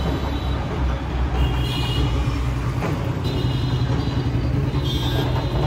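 Road vehicle running with a steady low rumble amid traffic, with several short high-pitched horn toots coming and going.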